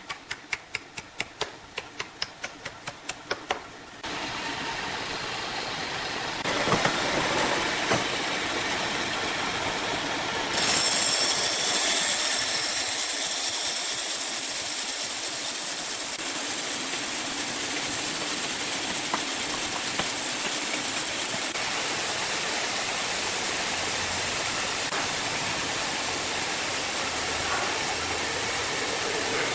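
Wood-processing machinery. About five sharp knocks a second fill the first four seconds, then the sound cuts abruptly twice, at about four and again near six and a half seconds. From about ten seconds a steady, loud mechanical din of machines running takes over.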